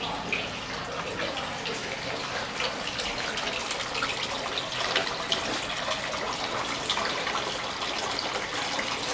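Stone wall fountain with three spouts pouring water into its basin, a steady splashing.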